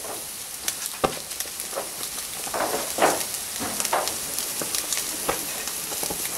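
Rib-eye steak sizzling on a grate over a gas infrared side burner: a steady hiss with irregular crackles and pops of spitting fat.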